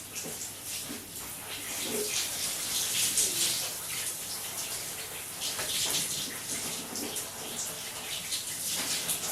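Shower water spraying and splashing unevenly on a person washing, with a few small knocks and squeaks below the spray.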